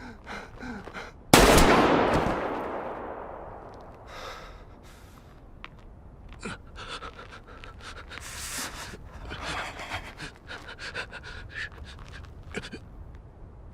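A single loud bang a little over a second in that rings out and fades away over about three seconds, followed by heavy panting breaths and scattered small clicks.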